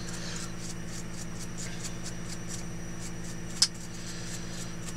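A small brush scratching lightly over a plastic camera mount, with faint ticks, and one sharp click a little past halfway, over a steady low hum.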